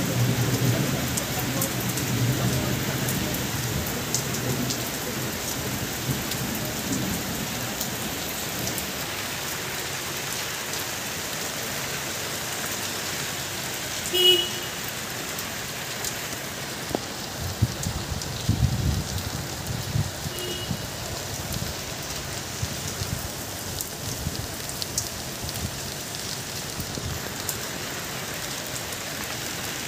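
Steady rain falling on wet pavement, an even hiss, with low rumbles in the first few seconds and again about two-thirds through. A short beep sounds about halfway, with a fainter one some six seconds later.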